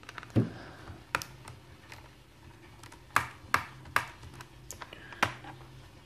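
Small cross-tip screwdriver undoing the screw of a laptop's plastic RAM compartment cover, and the cover being worked loose: several sharp plastic clicks and taps at irregular intervals.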